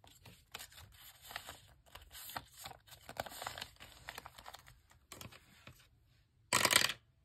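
Plastic pocket and paper banknote rustling and crinkling in short strokes as a note is pushed into a zip envelope, then a die clattering down a plastic dice tower for about half a second near the end, the loudest sound.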